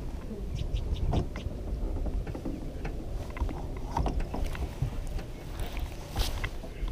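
Baitcasting reel being worked while fighting a hooked musky from a boat, giving scattered mechanical clicks and knocks over a low rumble. A brief, sharper hiss comes about six seconds in.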